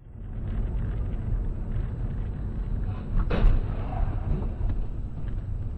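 Steady road and engine rumble heard from inside a car, broken about three and a half seconds in by one loud thud of a car collision.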